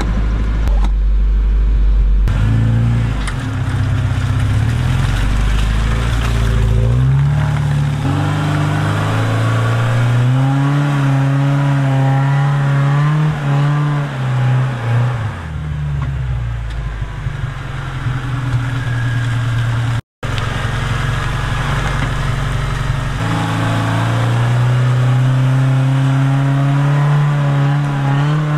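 Suzuki Sidekick's four-cylinder engine working hard in four-wheel-drive low range, its revs rising and falling over and over as it tries to climb a steep, muddy incline it struggles to get up.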